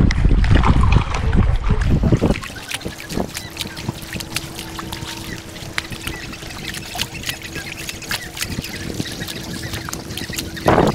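Wind buffeting the microphone for the first two seconds, then small water slaps and clicks against a small boat's hull, with a faint steady hum from about three seconds in until a short knock near the end.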